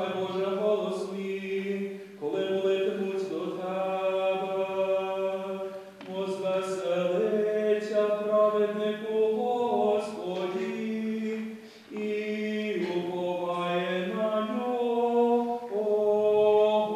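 A group of children's voices singing a slow liturgical chant together, long held notes stepping from pitch to pitch, in phrases separated by short breaks about two, six and twelve seconds in.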